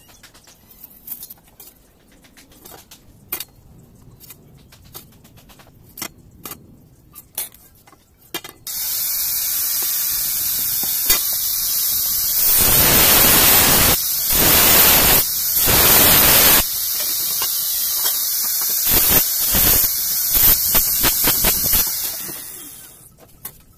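Light clicks and taps, then, about eight seconds in, a handheld angle grinder starts and runs with a steady high hiss, cutting steel square tubing. It grows louder in stretches around the middle as the disc bites into the metal, and stops shortly before the end.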